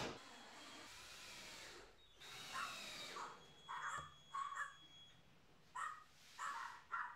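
A cordless drill runs in two short spells, driving screws into the cedar roof boards. It is followed by a string of short, harsh caw-like calls, several in a row, about half a second apart.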